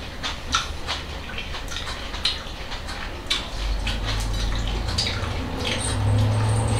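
Eating sounds: a run of quick, wet clicks and crunches from chewing lettuce salad and forks tapping plates. A low hum joins about three and a half seconds in.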